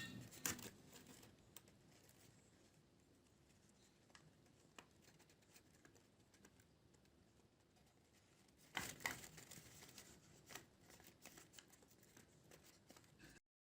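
Near silence with faint handling rustles and clicks: a short one at the start and a denser patch about nine seconds in.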